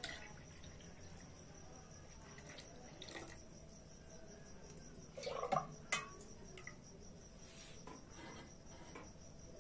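Faint clinks and knocks of a small steel bowl as milk is poured into a clay pot and scooped from a steel vessel, the loudest a short scrape a little past halfway. A steady high trill runs underneath.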